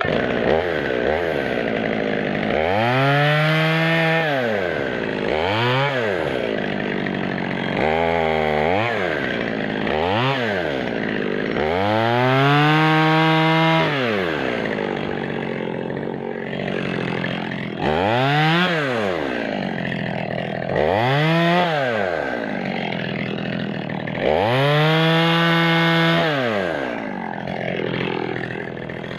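Chainsaw engine revved over and over, its pitch rising to full speed and falling back to idle, twice held at full speed for about two seconds.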